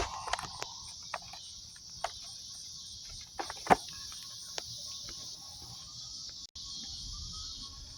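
Steady high-pitched chirring of crickets, with a few scattered clicks and knocks, the loudest about four seconds in.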